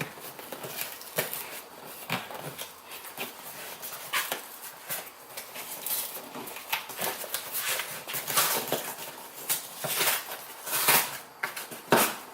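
Cardboard shipping box being opened by hand: irregular scraping, rustling and sharp clicks as heavy-duty staples are worked loose.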